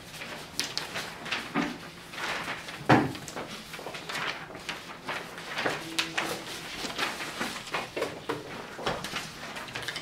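Paper handouts rustling and being shuffled as people pick sheets off piles on a desk, with irregular small knocks and a louder thump about three seconds in.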